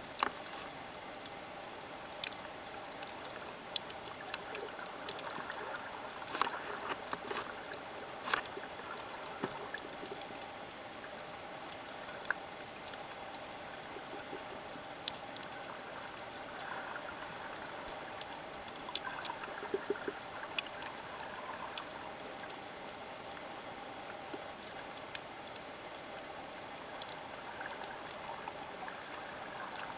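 Underwater ambience on a shallow coral reef: a steady hiss with scattered sharp clicks and crackles, and a few soft swishes of moving water.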